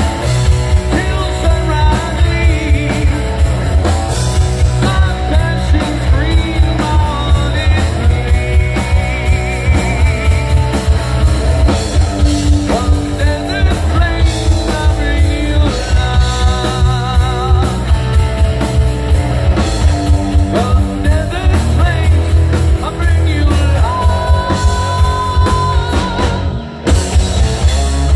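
Rock band playing live: electric guitars, bass and a drum kit keeping a steady beat, with a lead vocal. Near the end the band cuts out for a moment, then crashes back in.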